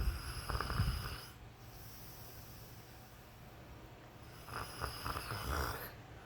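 A man snoring in his sleep. One snore fades out about a second in, and after a quiet pause another snoring breath comes about four and a half seconds in and lasts about a second and a half.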